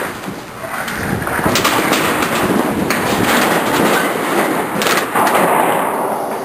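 Burning roof timbers and debris of a mudbrick house crackling: a dense hiss with sharp pops scattered through it.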